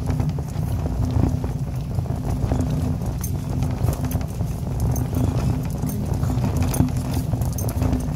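Shopping cart rolling and rattling over a hard store floor, a dense low rumble with many small clicks and clinks running throughout.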